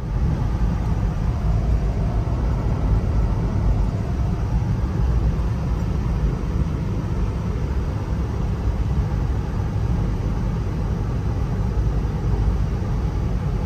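Steady road and wind noise inside the cabin of a third-generation Toyota 4Runner driving at road speed: a loud, even low rumble with no change in pace.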